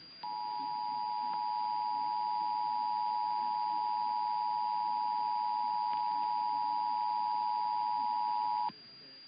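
Emergency Alert System attention signal: two steady tones (853 and 960 Hz) sounding together for about eight and a half seconds, then cutting off sharply. It is the alert tone of a required monthly EAS test.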